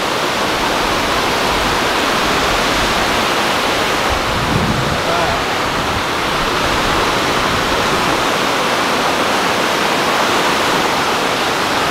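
Loud, steady rushing of river water pouring over and below a dam, an even roar with no break.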